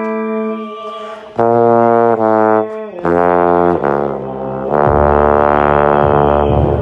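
Trombone playing close up: a held note fades out in the first second, then a run of loud, low notes starts about a second and a half in, ending with a long low note held from about five seconds in.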